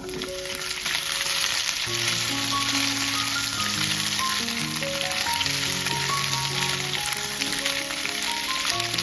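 Food frying in hot oil in a pan: a steady crackling sizzle that starts suddenly as the ingredients go into the oil, with background music playing under it.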